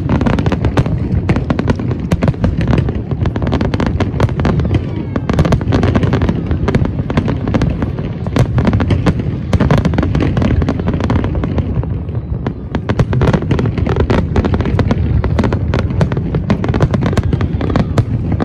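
Aerial fireworks display: a dense, continuous barrage of bangs and crackling bursts, many per second.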